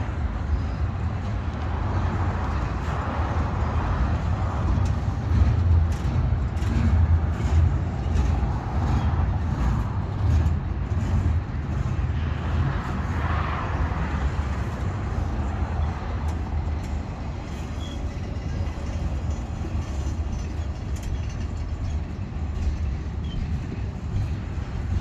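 Double-stack intermodal freight cars rolling past on the rails: a steady low rumble of wheels on track, swelling and easing every few seconds, with scattered sharp clicks and clanks.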